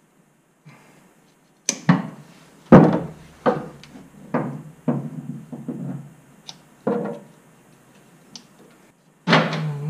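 A run of irregular knocks and clunks, about eight in five seconds starting near two seconds in and one more near the end: hand tools and fittings being handled while a fuel hose is worked on.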